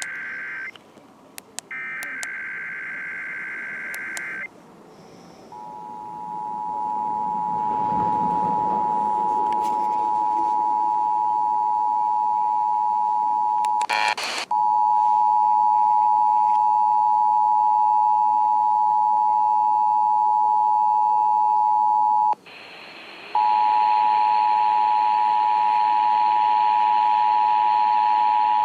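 Emergency Alert System signalling: two buzzy digital header bursts in the first four seconds, then the steady two-tone EAS attention signal. The two-tone signal is broken by a short click about fourteen seconds in and drops out for about a second near twenty-two seconds before resuming.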